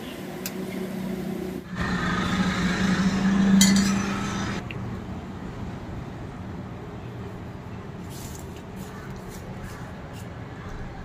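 Road traffic noise from outside, swelling loudly as a vehicle passes about two to four and a half seconds in, then settling back to a steady drone. Underneath, mathri deep-frying in oil in a steel kadhai bubble faintly.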